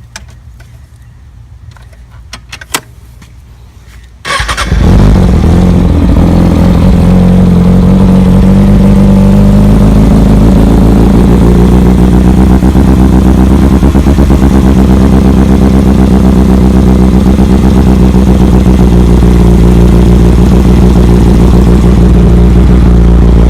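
2013 Kawasaki ZX-6R's inline-four engine starting about four seconds in, then idling steadily and very loud.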